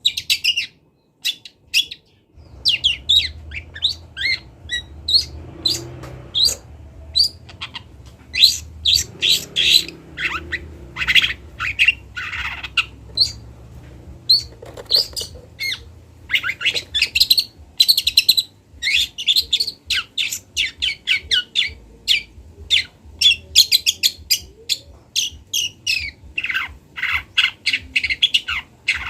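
Young long-tailed shrike singing a fast, rambling run of short, sharp chirps and squawks: the practice song of a juvenile still learning its notes. A low steady hum sits underneath from about two seconds in.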